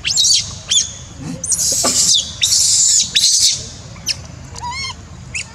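Infant macaque crying: a run of high-pitched, arching squeals that turn into harsh screams for about two seconds in the middle, then short squeaks again near the end.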